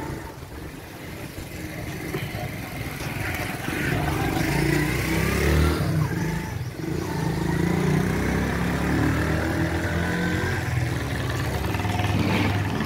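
Motorcycle engine running close by on the street, getting louder over the first few seconds and then holding steady, with some revving.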